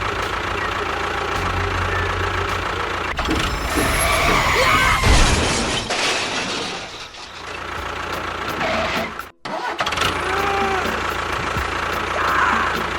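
A motor or engine running steadily with a low rumble, cutting out briefly about nine seconds in and then running on.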